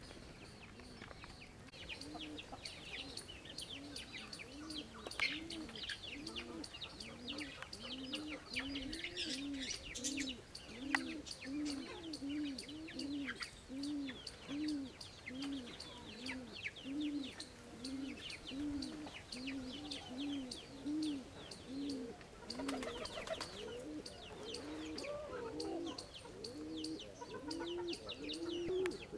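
Domestic pigeons cooing: a steady run of low rise-and-fall notes, about two a second. Over it, other birds chirp high and constantly. A brief rush of noise comes about three-quarters of the way through.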